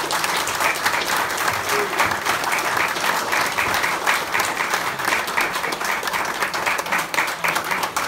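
An audience applauding: a dense, steady round of clapping from a roomful of people.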